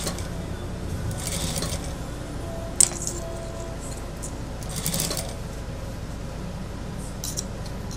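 Fabric and tape rustling in short bursts as they are positioned under the presser foot of an industrial lockstitch sewing machine, with one sharp click about three seconds in, over a steady low hum.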